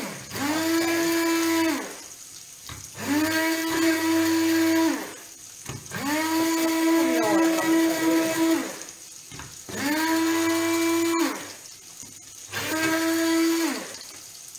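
Electric immersion blender run in five short bursts of one to three seconds each. Each burst is a steady motor hum that rises in pitch as the blade spins up and falls away when released, as it purées artichoke stem with cooking water in a narrow glass.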